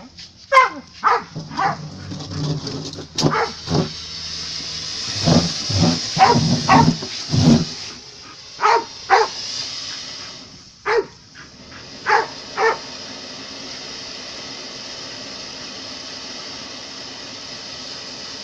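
A dog barking repeatedly, in bunches of short barks over the first dozen seconds, then stopping; a steady hiss carries on underneath to the end.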